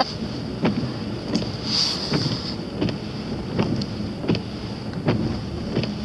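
Car driving on a wet road, heard from inside: steady tyre and engine noise with a high steady whine, and a short regular stroke repeating about every three-quarters of a second.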